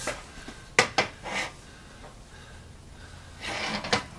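A few sharp clicks and light knocks of a metal spirit level being set on and shifted across a steel anvil face, with short breathy noises between them.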